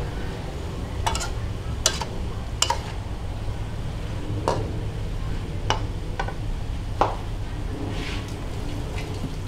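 A metal spatula scraping and knocking against a wok as squid and garlic chives are stir-fried, giving about eight sharp, irregular clinks over a steady frying sizzle and low hum.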